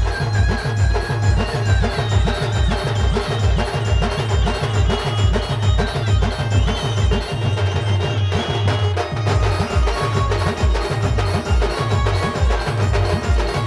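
Adivasi band playing a rodali dance tune: a fast, steady deep drum beat under a held, stepping high melody line. The deep drum drops out for about a second around the middle, then comes back in.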